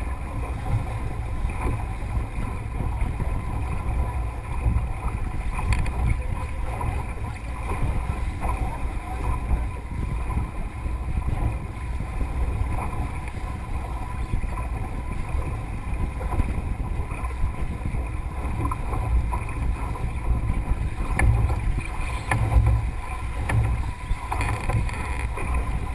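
Water rushing along the hull of a Melges 24 sailboat under way, with wind buffeting the microphone as a constant gusty low rumble.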